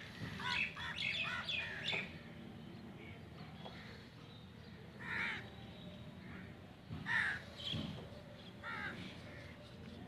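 Crows cawing: a quick run of harsh calls in the first two seconds, then single caws a second or two apart.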